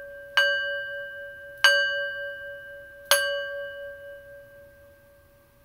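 Singing bowl struck three times, about a second and a half apart, each strike ringing on in a steady, slightly wavering tone that slowly fades away near the end.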